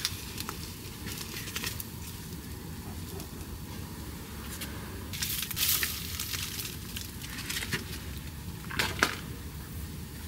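Plastic food packaging being handled, crinkling and rustling in short bursts with small clicks, loudest about halfway through and again near the end, over a steady low background noise.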